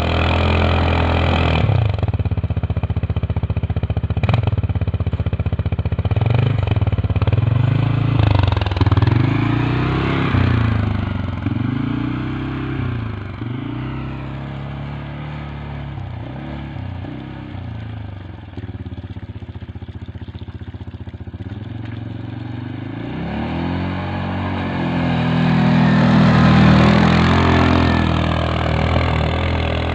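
CFMoto CForce 550 ATV's single-cylinder engine revving up and down again and again as it churns its tyres through deep snow on a climb. It is loudest near the end.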